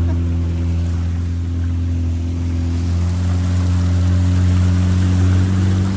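Boat outboard motor running steadily at constant speed, a low even drone with water hiss as the boat travels along the river.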